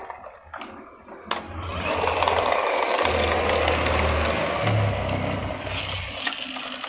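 A couple of light knocks, then a plastic toy vehicle rolling across a ceramic tile floor: a whirring rumble of wheels that builds for about five seconds and then fades.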